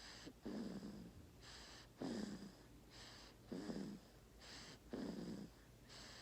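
Snoring in slow, even breaths: a low, rough snore about every second and a half, each one alternating with a hissing breath, four cycles in all.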